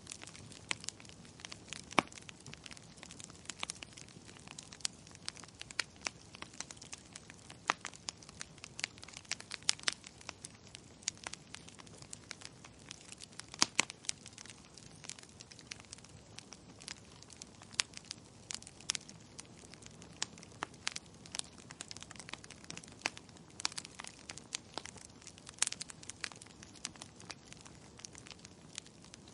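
Wood fire burning in a fireplace, crackling: irregular sharp pops and snaps over a low steady hiss, a few pops standing out louder.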